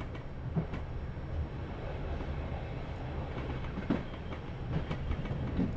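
Inside a moving PKP type 120A passenger coach: the steady low rumble of the running gear on the track, with a few sharp knocks as the wheels cross rail joints.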